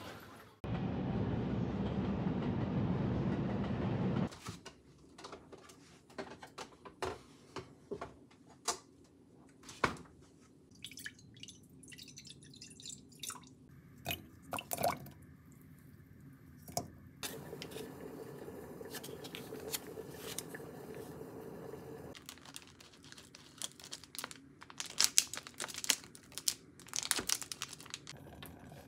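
Kitchen cooking sounds. A few seconds of steady rushing noise give way to scattered clicks and knocks of utensils and of cubes of kabocha squash dropping into a stainless steel pot of water. Near the end come sharp, loud knocks of a knife cutting through packaged bacon on a wooden cutting board.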